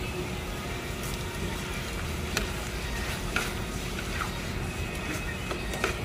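Steady hiss and bustle of a busy food-stall kitchen, with a few light clinks and knocks of utensils against pots, about two and three seconds in and again near the end.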